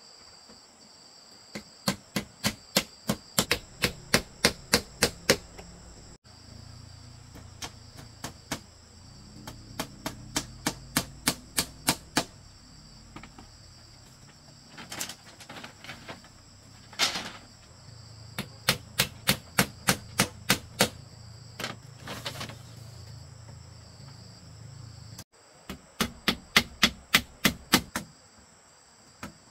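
Hammer driving nails into a bamboo frame: runs of quick, even strikes, about three a second, with short pauses between runs. Insects drone steadily underneath.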